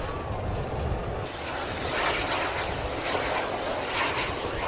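Low rumble of a passing train, cut off about a second in by a run of airy, swelling whooshes: the sound effects of a channel logo animation.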